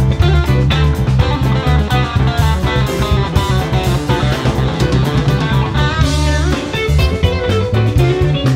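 A live band plays an instrumental jam, with electric guitars, bass guitar, keyboards and drum kit over a heavy, steady bass. About six seconds in, one note slides upward.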